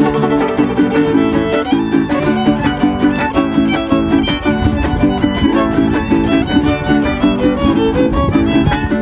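Son huasteco played without singing by a violin, huapanguera and jarana huasteca: the violin carries the melody over the even, rhythmic strumming of the two guitars.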